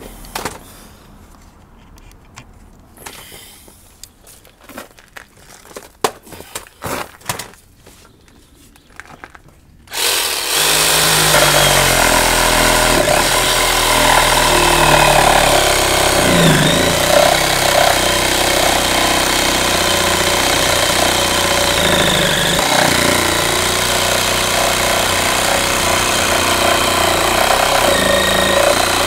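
DeWalt 18-volt cordless reciprocating saw cutting into a rotten wooden gate post, starting suddenly about ten seconds in and then running steadily. Before it starts, a few scattered knocks and clicks.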